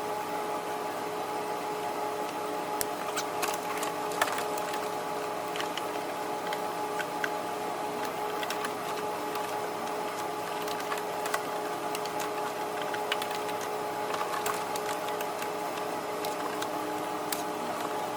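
A steady mechanical hum holding two even tones, like a small motor or fan running, with scattered light clicks and taps throughout.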